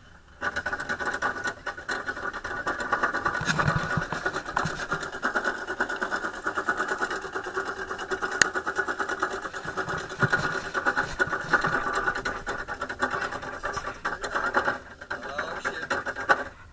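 Amusement ride running: a steady, fast mechanical rattling that starts abruptly about half a second in and cuts off suddenly near the end.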